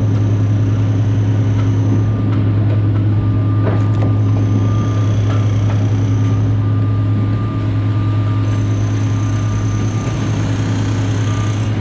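A machine on a construction site running steadily with a loud, low hum, joined three times by a thin high-pitched whine that comes and goes for a few seconds each.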